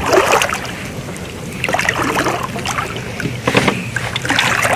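Water splashing at the side of a kayak in four separate bursts about a second and a half apart.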